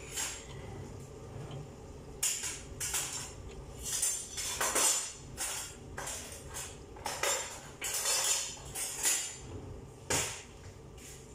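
Kitchen utensils and cutlery clattering and clinking as someone rummages through a drawer: irregular short rattles, several a second.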